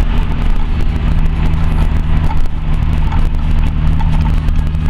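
Turbocharged 1.4-litre engine of a modified VW Golf Mk1 running at steady revs while the car cruises, heard from inside the cabin over a constant road noise.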